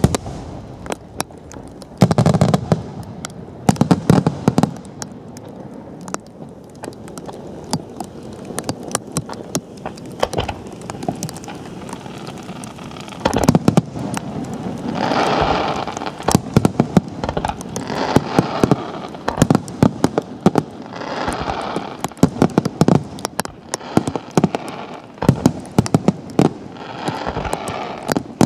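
Firecrackers and fireworks going off in rapid crackling strings of sharp bangs, with several denser, louder flurries of crackle, most of them in the second half.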